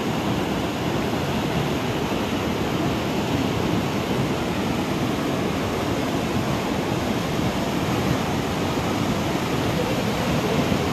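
Steady rushing of a river in flash flood: fast, turbulent, muddy floodwater churning in standing waves.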